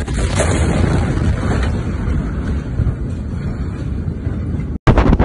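Blast wave of the Beirut port ammonium nitrate explosion reaching a phone: a sharp bang at the start, then a loud, low, steady rumble with wind buffeting the microphone. The sound cuts out abruptly near the end and another loud burst follows.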